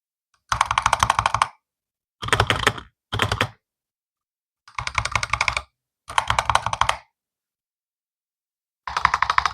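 Razer Huntsman V3 Pro keyboard, with Razer analog optical switches, being typed on in quick bursts of rapid keystrokes. There are six short runs of fast clacking, each under a second long, separated by silent pauses.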